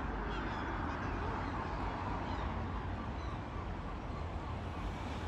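Seaside outdoor ambience: a steady rush with a low rumble, and faint short gull calls now and then.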